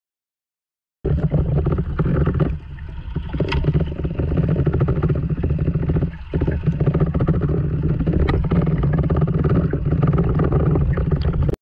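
Muffled underwater rumble picked up by a GoPro camera in its waterproof housing: a steady low rush of water and housing noise, starting abruptly about a second in, with a few sharp clicks.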